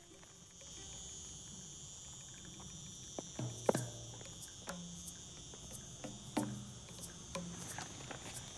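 Steady, high insect chorus of the dry countryside, with scattered sharp clicks and knocks from about three seconds in, the loudest a little before the middle.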